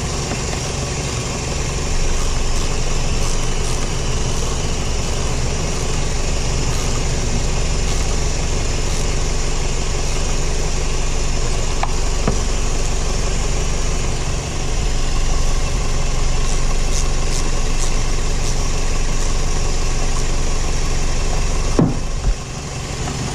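Scion xA's four-cylinder engine idling steadily, heard up close in the open engine bay, with a few faint metallic clicks from a wrench tightening the battery terminals and a single knock near the end.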